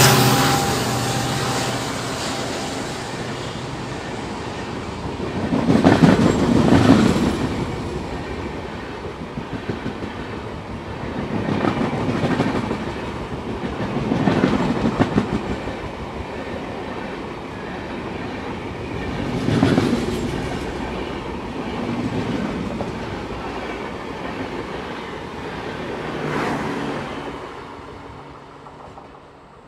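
A train's coaches rushing past at speed, with loud wheel clatter over the rail joints coming in recurring bursts every few seconds as the bogies go by, then fading away near the end as the train recedes.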